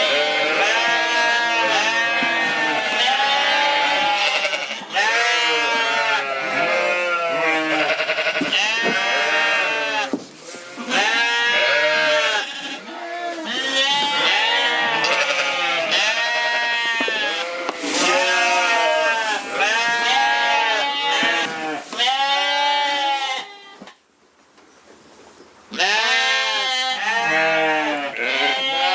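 A flock of Corriedale sheep bleating, many loud calls overlapping almost without pause, with a short lull near the end.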